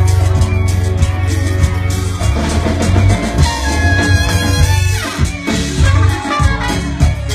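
Live Latin band playing loudly: horns holding long notes over electric bass, guitars and a drum kit with percussion.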